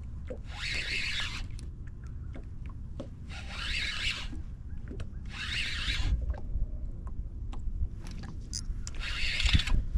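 Fishing reel whirring in four short bursts, one every one to three seconds, while a big hooked fish is being fought. A steady low rumble runs underneath.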